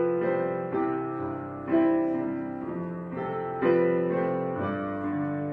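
Background piano music: slow chords struck about every two seconds, each left to ring and fade.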